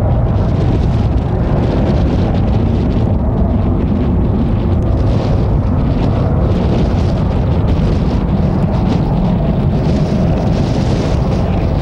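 Boeing 737-200's Pratt & Whitney JT8D turbofans at takeoff power, a loud steady rumble during the takeoff roll and lift-off, with a hiss growing higher up near the end.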